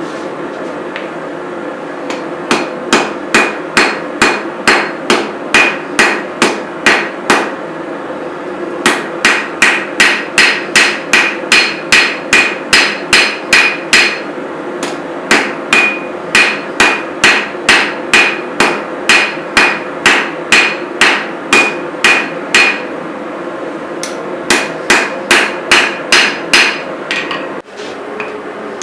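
Hand hammer striking a hot steel knife blade on an anvil, about two blows a second with a metallic ring, in four runs broken by short pauses. A steady rushing noise runs underneath.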